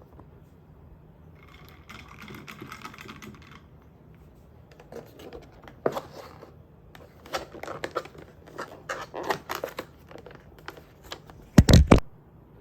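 Typing on a computer keyboard, with keys clicking in uneven runs. There is a louder thump near the end.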